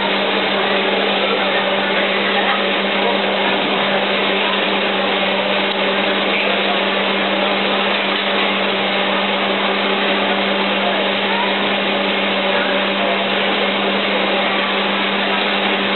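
Antique taffy-pulling machine running as it stretches salt water taffy, giving a steady hum over a constant rushing noise.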